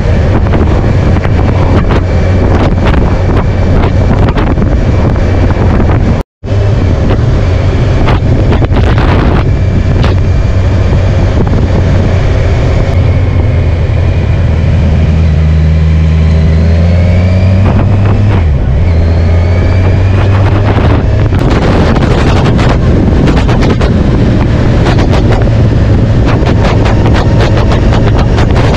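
A vehicle engine running while travelling, with heavy wind noise on the microphone. The engine note climbs around the middle and then drops back, and the sound cuts out for a moment about six seconds in.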